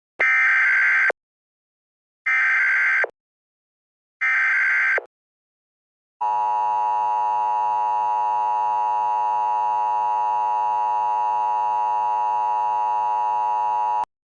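Emergency Alert System tones: three short screeching bursts of digital alert header data about two seconds apart, then after a pause a steady, loud attention tone of about eight seconds that cuts off suddenly. They announce a severe thunderstorm warning.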